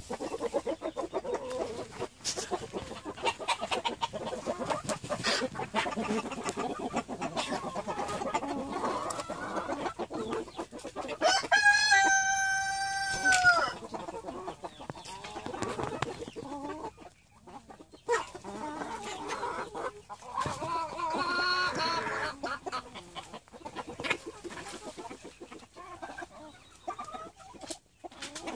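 A flock of white silkie chickens clucking, with a rooster crowing loudly once about twelve seconds in: a long, steady call that drops in pitch at its end.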